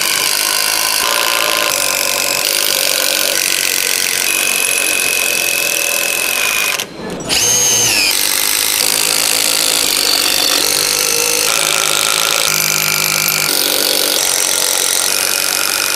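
Cordless impact drivers hammering long 20 cm screws into a stacked wooden block, a continuous rattling run. The sound breaks off briefly about seven seconds in, and the next run starts at once.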